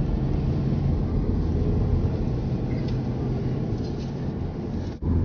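Steady low hum of road and engine noise heard from inside a moving car, cutting out briefly near the end.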